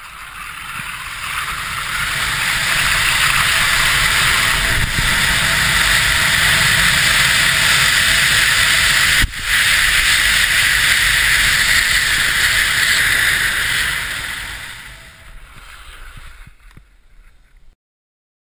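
Rushing wind noise on the camera of a ski jumper speeding down the in-run and through the air over the landing hill. It builds over the first few seconds, holds steady with a brief drop about nine seconds in, then fades and cuts off near the end.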